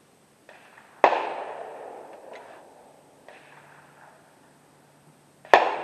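Two gunshots about four and a half seconds apart, each a sharp crack followed by an echo that dies away over a second or two.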